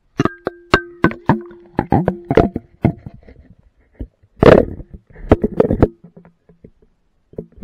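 Irregular sharp knocks and clicks of the action camera's plastic waterproof housing bumping and being handled against a drinking glass, picked up by the camera itself under the water. Some knocks leave a brief ringing tone, and a dense cluster of knocks comes about four and a half seconds in.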